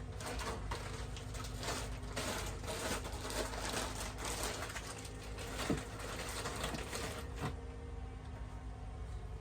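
Hands working scrap foam and a hot glue gun: irregular small clicks, taps and rustles over a steady low hum, with one sharper tap a little past halfway.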